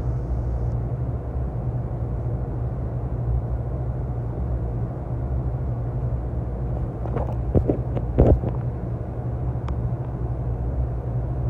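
Steady low rumble and hum of an NJ Transit Multilevel commuter train on the tracks by the platform, with a few sharp metallic clanks about seven to eight seconds in.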